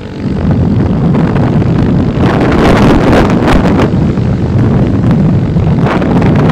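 Heavy wind buffeting on the microphone of a moving scooter, with road and engine noise beneath it. It jumps up in level within the first half second and stays loud and gusty.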